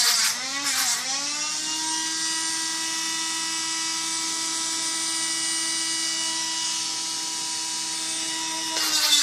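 Dremel rotary tool with a small abrasive bit, whining at high speed. For about the first second it grinds against the plastic crossbow bolt where the nail is melted on, with a scraping hiss and a wavering pitch. It then runs free at a steady pitch until near the end, when it bites into the bolt again and the pitch dips slightly.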